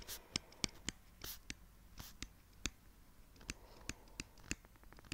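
Stylus writing by hand on a tablet's touch screen: faint, irregular light taps with a few short scratchy strokes.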